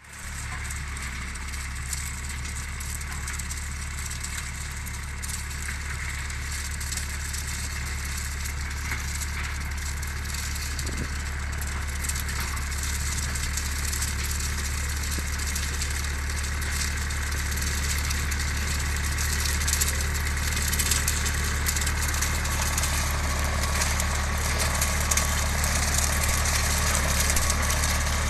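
Tractor engine running steadily at low revs as it pulls an orchard sweeper down the row, growing gradually louder as it comes closer.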